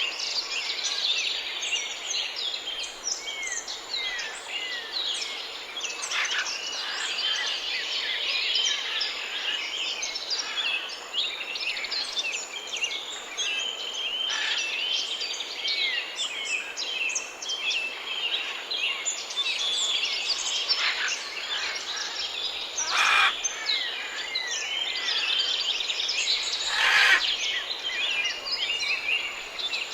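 A dense chorus of many small birds chirping and singing, with a few short downward-sliding whistles. Near the end come two brief, louder rasping noises, the second the loudest.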